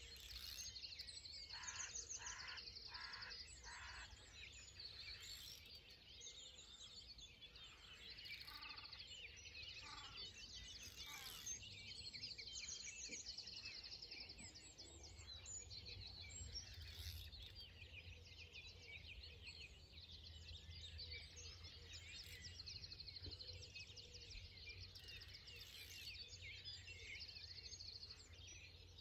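Faint chorus of songbirds from the lakeside reeds and fields: many overlapping chirps and rapid trills, over a low steady rumble.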